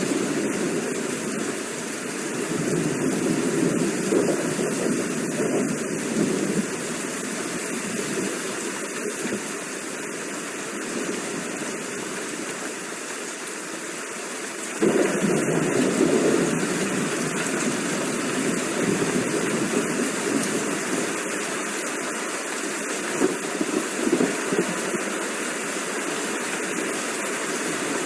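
Steady heavy rain hissing, with rolling rumbles of thunder that swell and fade. One rumble sets in abruptly about halfway through.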